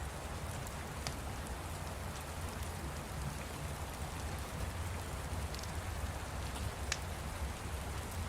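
Steady rain with a low rumble underneath, and a few sharp crackles from a fire over it.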